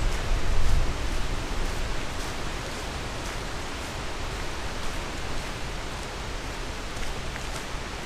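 Wind buffeting the camera's microphone, a steady rushing hiss with low rumble, heaviest in a gust during the first second.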